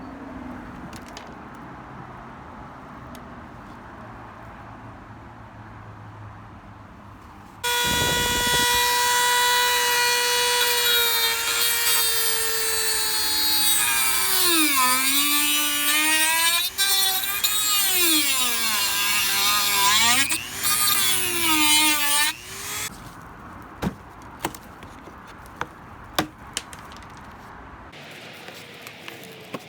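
An electric power tool's motor starting about eight seconds in with a steady high whine, then dipping in pitch and recovering again and again as it loads against the work, and stopping after about fifteen seconds. A few light clicks and taps follow.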